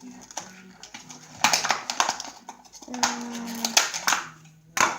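Small plastic toy pieces being handled and fitted together, with rustling and sharp clicks, the loudest click near the end.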